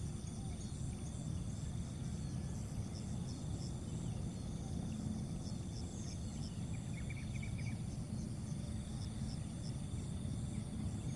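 Outdoor ambience of insects chirping in short, evenly repeated pulses over a steady low rumble, with a brief cluster of higher chirps about seven seconds in.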